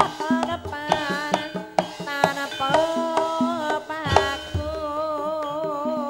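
Javanese gamelan music led by kendang hand-drum strokes, with bronze gongs and a wavering melody line. The melody settles into a long held line with vibrato in the second half.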